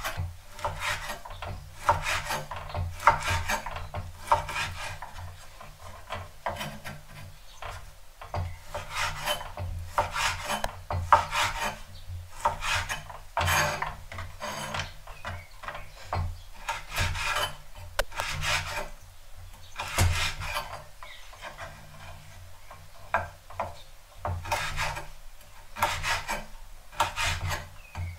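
Kitchen knife dicing pork belly on a wooden cutting board: repeated cuts, a few a second in uneven runs, each blade stroke slicing through the meat and knocking the board.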